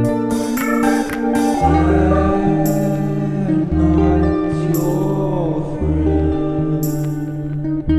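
Background music: a song with a sung vocal over guitar and a steady repeating bass.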